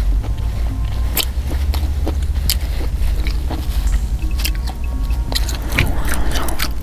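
A person chewing and biting a mouthful of food close to the microphone, with irregular small clicks and smacks over a steady low rumble.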